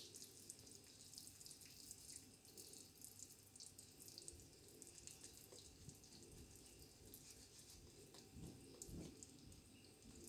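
Faint stirring of thick cake batter in a mug: a spoon scraping and clicking irregularly against the mug, with a wet, squelching edge.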